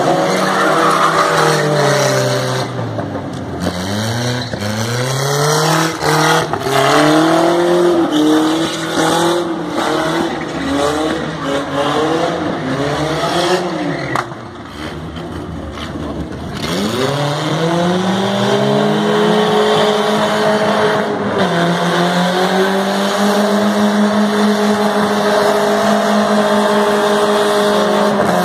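Car engine revving up and down again and again during a burnout as its rear tyres spin and squeal on concrete. For the last ten seconds or so it is held at high, steady revs with the tyres spinning continuously.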